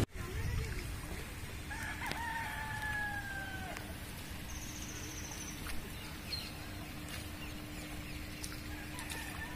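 A rooster crowing: one long call starting about one and a half seconds in and falling slightly at the end, with a fainter call near the end. Underneath are a low rumble and a faint steady hum.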